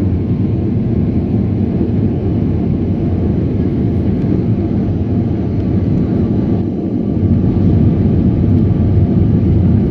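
Jet airliner cabin noise while climbing after takeoff: a steady low rumble of the engines and airflow heard inside the cabin. It dips briefly about six and a half seconds in, then grows a little louder.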